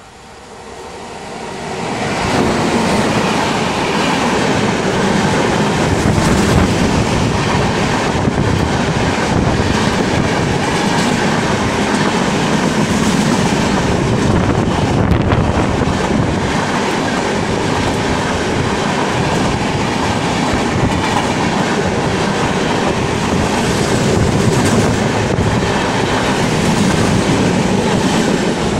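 Electric-locomotive-hauled express train passing at speed on the adjacent track, close by. Its noise swells over the first two seconds as the locomotive arrives, then the coaches go by with a steady, loud clickety-clack of wheels over rail joints.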